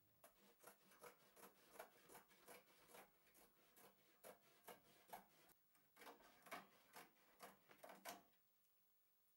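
Wide-format inkjet printer working as a canvas print feeds out, giving short regular clicks about two to three a second that stop about eight seconds in.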